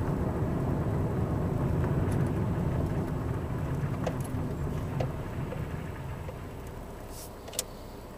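Lada 21922 car's running and road noise heard from inside, dying away gradually as the car slows, with two faint short knocks about four and five seconds in and a couple of clicks near the end.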